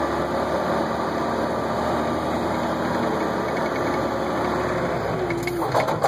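Case 621D wheel loader's diesel engine running steadily. Near the end there is a short rising whine and a few sharp clicks.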